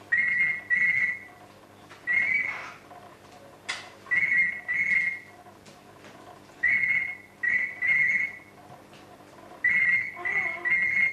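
Female red eclectus parrot mimicking a ringing telephone: short, steady, high whistled tones in groups of one to three, repeated every two to three seconds.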